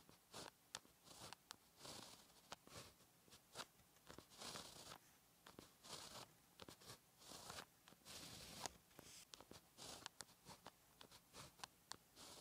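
Zebra Sarasa 1.0 mm gel pen writing Chinese characters on gridded practice paper: quiet, scratchy pen strokes broken by sharp taps as the tip meets the paper, with a couple of longer drawn strokes about four and eight seconds in.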